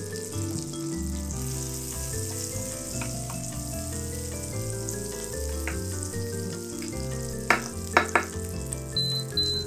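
Sliced garlic and butter sizzling in a rectangular iron pan, under background music. A wooden spatula knocks against the pan a few times about seven and a half seconds in, and three short high beeps come near the end as the induction hob is turned up to medium heat.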